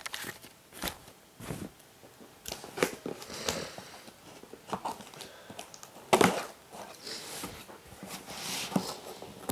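Cardboard shipping box being handled and shifted on a bed, with scattered scrapes, taps and rustles and one louder scrape about six seconds in.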